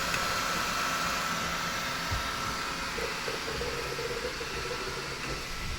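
3D printer running mid-print: a steady whir of its cooling fans with a faint stepper-motor whine that shifts in short patterns as the axes move.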